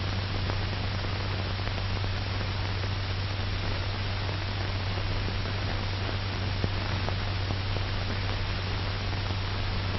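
Steady hiss and low mains-type hum of an old 1940s film soundtrack, with a faint click about two-thirds of the way through and no other sound.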